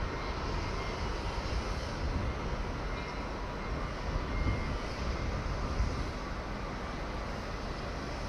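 Steady outdoor background noise: a low rumble under an even hiss, with no distinct event.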